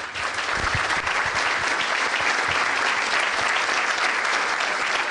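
A large audience applauding steadily, a dense even clapping that starts right away and holds throughout, in answer to a call for a big round of applause for the guest speaker.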